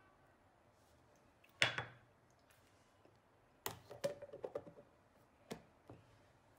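A small ceramic ramekin set down on a stone countertop with one knock, then a run of quick plastic clicks and taps as the lid is pressed onto a plastic food container, followed by two lighter clicks.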